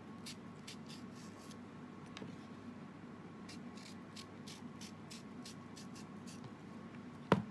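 Faint scattered clicks and light scrapes of a knife and cut green mango pieces being handled, with one sharp knock near the end, over a faint steady hum.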